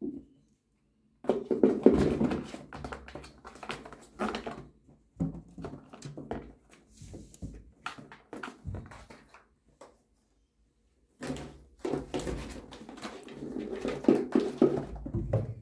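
Kittens playing at a round cardboard scratcher track toy: irregular clattering, knocking and scratching from paws batting at it, in three spells with short silent gaps.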